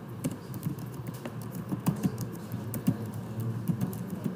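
Typing on a computer keyboard: quick, irregular key clicks as a sentence is typed, over a low steady hum.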